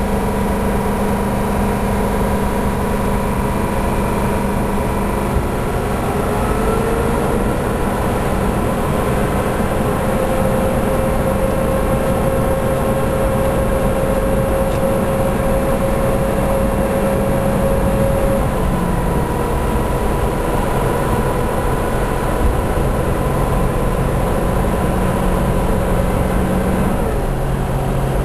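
2006 Ford F-350's 6.0-litre Power Stroke V8 turbo-diesel running under way, with a thin whistle that comes in about six seconds in, glides up in pitch, holds steady and drops away near the end. The owner wonders whether the whistle is the turbo; it brings no change on the gauges or in power.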